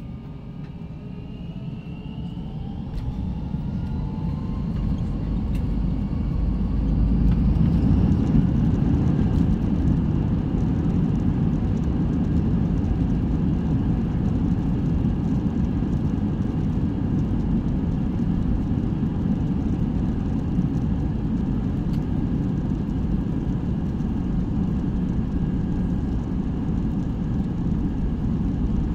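Airbus A319 jet engines spooling up to takeoff power, heard from inside the cabin. A whine rises in pitch and the sound swells over the first several seconds. It then settles into a steady loud roar with deep rumble as the airliner accelerates down the runway.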